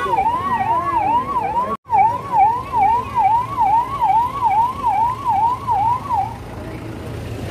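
Police vehicle siren wailing in a fast rise-and-fall, about two and a half sweeps a second. It breaks off for an instant just before two seconds in and stops about six seconds in, leaving road noise.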